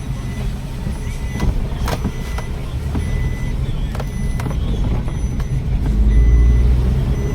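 Maruti WagonR engine and road noise heard from inside the cabin while driving, a steady low rumble that grows louder about six seconds in, with a few clicks. The engine runs smoothly with the cylinder-2 ignition coil replaced, and the misfire is gone.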